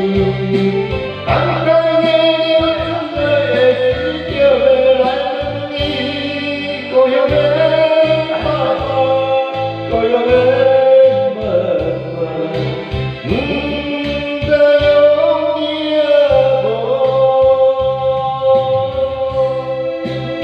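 A man singing karaoke through a microphone over a backing track, holding long notes.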